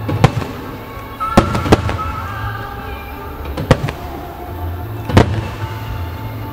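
Aerial firework shells bursting in several sharp bangs, about five in all, with steady music playing underneath.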